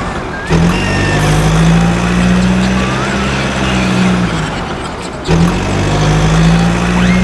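A heavy vehicle engine drone, running steadily at a constant pitch. It breaks off briefly twice and comes back abruptly about half a second in and again about five seconds in.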